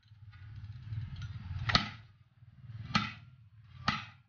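Hand hammer striking a steel strip three times, about a second apart, each blow a sharp metallic clang with a short ring, over a low steady rumble.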